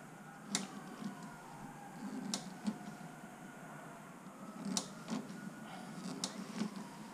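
Sharp metallic taps and clicks from paintless dent repair tools worked on a motorcycle fuel tank, mostly in pairs a third of a second apart, every second or two.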